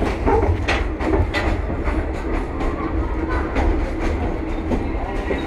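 Electric commuter train moving through the station: a steady low rumble with irregular clanks and clicks of wheels over rail joints.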